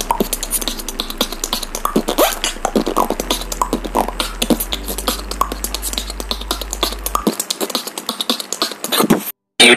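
A person beatboxing: a fast, dense run of mouth clicks and percussive pops with short pitched vocal sounds, breaking off briefly near the end.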